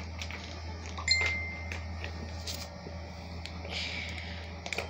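Scattered light clicks and taps on a hard plastic three-tier cat ball-track toy as kittens bat at it and its balls. About a second in comes the loudest, a click followed by a short ringing ping, and a steady low hum lies under it all.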